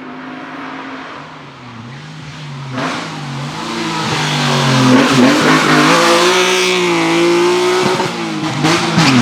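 A race car's engine revving hard up and down through gear changes, with a few sharp cracks on the shifts. It grows louder as the car approaches and stays loud from about halfway through.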